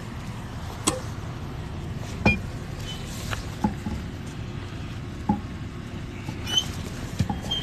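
Steady low rumble of street traffic, with about six sharp clicks and knocks scattered a second or two apart.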